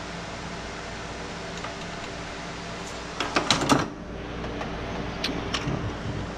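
Metal clinks and rattles of hand tools and engine parts being handled while a camshaft gear is fitted: a quick cluster about three seconds in, then a few single ticks. A steady hum runs underneath.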